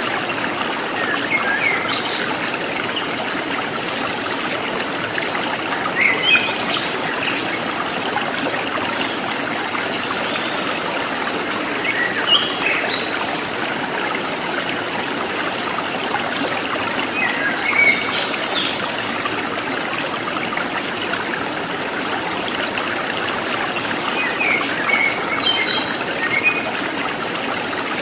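Forest stream trickling and gurgling steadily, with a wild bird breaking in five times with short bursts of high chirps, about every six seconds.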